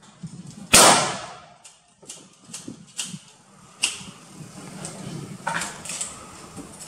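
A single loud report from a black-powder muzzle-loading firearm about a second in, with a short ringing tail. A few fainter sharp cracks and clicks follow.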